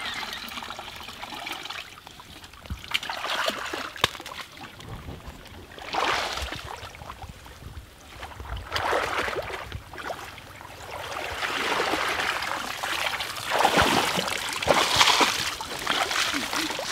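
Water splashing and pouring out through a woven basket as it is scooped through a shallow, weedy pond and lifted out, the splash-and-drain repeating every few seconds with trickling in between.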